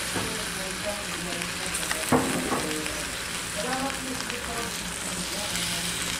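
Chopsuey vegetables sizzling steadily in a Saladmaster stainless-steel electric skillet, with one sharp knock about two seconds in.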